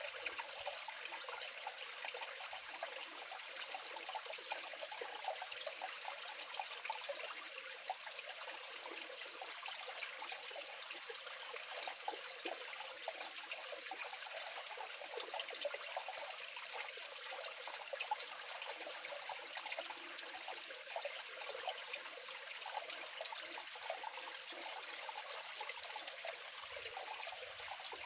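Water sloshing and trickling steadily, with small irregular splashes, as a gold pan is swirled and dipped in shallow water to wash the light sediment off the concentrate.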